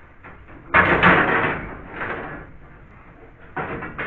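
Scraping and rustling as a cable is worked through a tight ceiling space between joists, in three bursts; the loudest comes about a second in.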